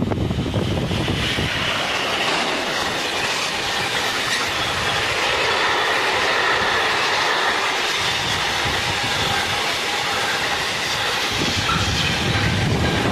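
A freight train hauled by a BB 27000-series electric locomotive goes through at speed, close by. The locomotive arrives loudly at the start, and then a long line of tank wagons rolls past with the steady rumble and rattle of their wheels on the rails and a faint, steady high whine.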